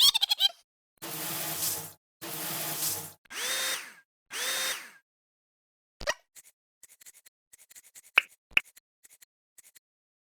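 Cartoon sound effects: four short noisy bursts about a second apart, the last two with a tone that rises, holds and falls, then scattered light clicks and ticks.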